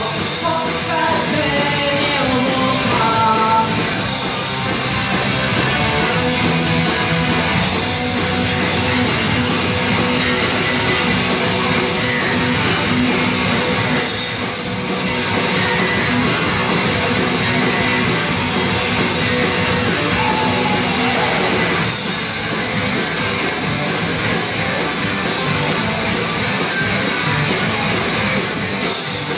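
Underground rock band playing live, heard from among the audience: electric guitars and a steady drum beat with sung and shouted vocals.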